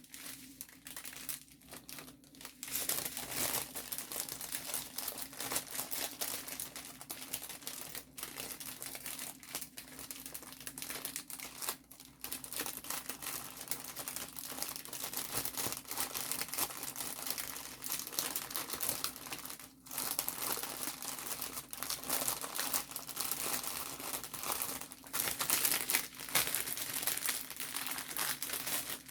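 Plastic packaging from a diamond painting kit crinkling and rustling as it is handled, in uneven bursts with short pauses.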